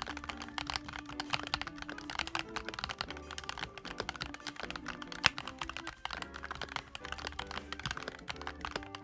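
Fast, continuous typing on a CIDOO ABM098 mechanical keyboard with CIDOO Blue-Through linear switches, with one sharper, louder keystroke about five seconds in. Background music plays underneath.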